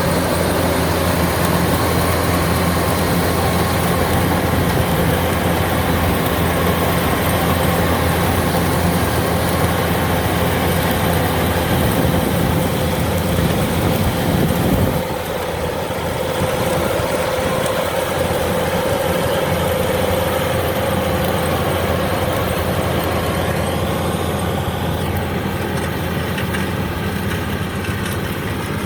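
Kubota combine harvester's diesel engine running steadily while harvesting rice. About halfway through it becomes a little quieter and the deep rumble fades, but it keeps running.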